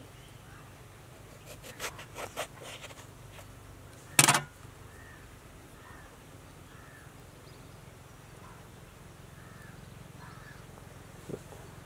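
A knife slitting a whole round brinjal, with a few short crisp cuts about two seconds in. About four seconds in comes one loud short sound, with faint short chirps behind it.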